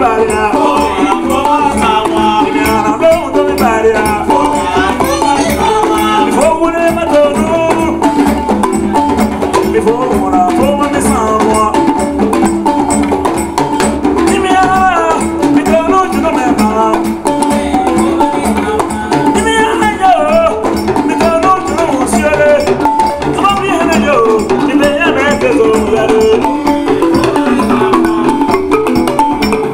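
Live West African ensemble music at a fast, steady pulse: a balafon (gourd-resonated wooden xylophone) playing a repeating pattern over djembe hand drums and shakers.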